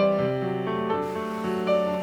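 Background music: a gentle piano melody, one note struck about every half second over held lower notes.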